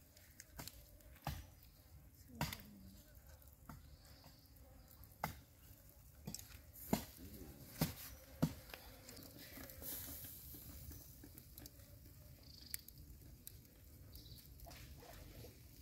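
Hands handling a meat-stuffed pork stomach: faint sticky, wet handling sounds with scattered sharp clicks and taps, most of them in the first half.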